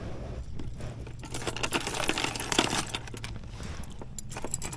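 Metal chain fish stringer jangling and clinking as it is handled, in a run of rapid clinks that is thickest in the middle couple of seconds.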